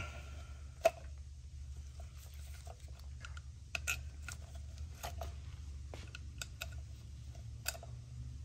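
Faint scattered clicks and light taps of a right-angle pick and gloved fingers working on a plastic oil filter housing as its old O-rings are pried off, over a steady low hum.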